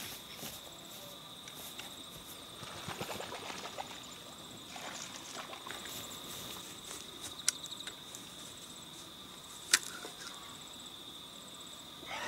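Insects trilling steadily at a high, even pitch, with light rustling and two sharp clicks, the louder one near the end.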